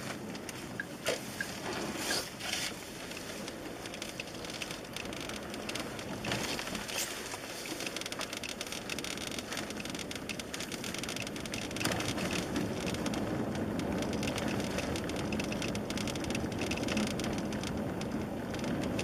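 Steady road noise inside a Kia Optima's cabin, with short creaks and clicks from the front dashboard panel, a squeak that is a fault in the trim.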